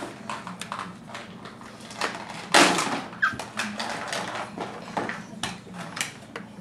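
Plastic toy telephone clicking and clacking as a small child handles its buttons and parts, with one louder clatter about two and a half seconds in.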